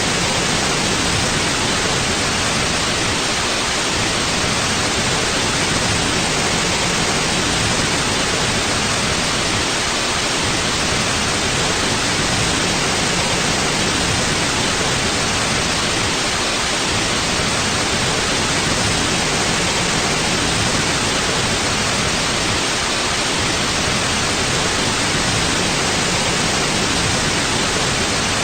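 Steady white noise: an even, unchanging hiss spread across the whole range.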